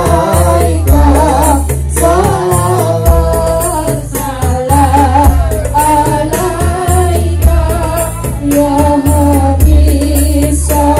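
Loud music with a woman singing a wavering melody over a steady bass line that moves in held notes.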